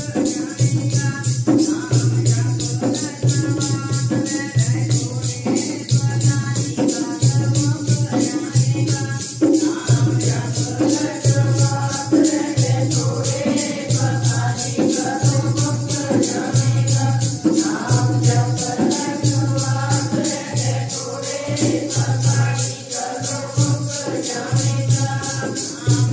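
A group of women singing Sikh shabad kirtan, accompanied by a jingling hand percussion that keeps a steady beat.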